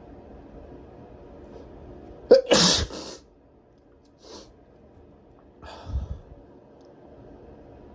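A person's induced, tickle-driven sneeze about two seconds in: a short sharp voiced onset, then a loud forceful burst of air. Two quieter breathy sounds follow, about a second and three seconds later.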